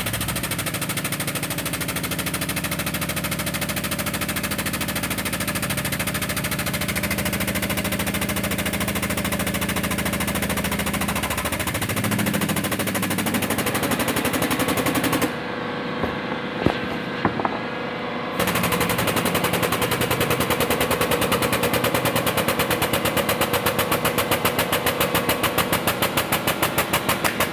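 Air pump of a 20-ton air-over-hydraulic bottle jack running with a rapid, steady chatter as it drives the ram down to press a steel truss plate into the wood. It falls quieter for about three seconds just after the middle, then starts again.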